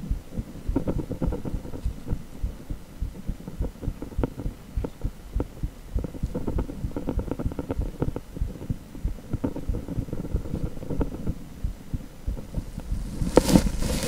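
Heartbeat sound from an echocardiogram's Doppler ultrasound: a steady run of low, repeating pulses with each beat of the heart. A brief louder noise near the end.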